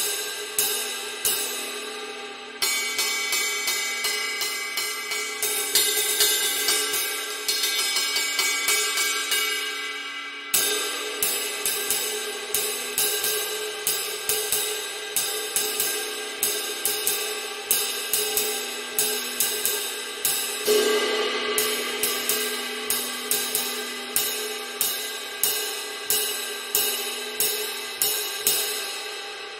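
A 22-inch Zildjian K Constantinople Light ride cymbal, 2345 g, struck in a steady pattern of about two strokes a second, its wash ringing on between hits. For a stretch early on the wash builds brighter and thicker, then drops away suddenly about ten seconds in.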